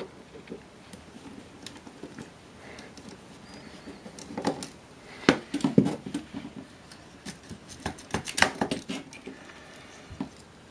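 Handling noise of a plug-in electronics module on an aluminium plate being worked loose and pulled out of its slot in a metal chassis: scattered clicks, light scrapes and metallic knocks, with sharper clusters of knocks about halfway through and again about two-thirds in.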